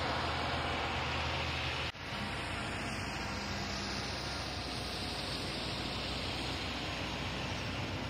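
Diesel engines of Case 721G XT wheel loaders working a maize silage clamp, running steadily under a constant hiss. The sound drops out for a moment about two seconds in and then carries on.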